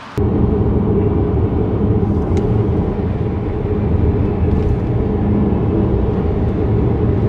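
Steady low rumble of road and wind noise from a car driving at highway speed, heard from the car. It starts abruptly just after the beginning.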